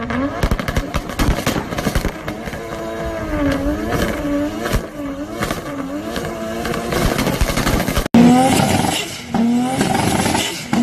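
Turbocharged car engine revved in repeated quick blips, its pitch rising and falling about once or twice a second, with sharp crackles throughout. About eight seconds in the sound cuts abruptly to another spell of revving.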